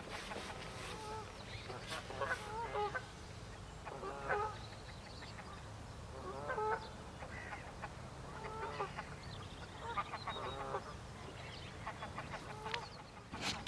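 Geese honking, short calls repeated every second or two, over a low steady rumble of wind on the microphone.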